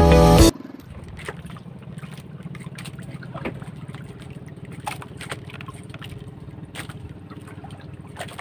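A small outrigger fishing boat's engine runs steadily at low speed, with a few light knocks now and then. Background music cuts off about half a second in.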